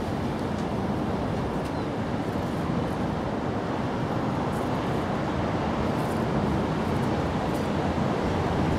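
Steady low rushing background noise that grows slightly louder over the stretch, with a few faint high ticks.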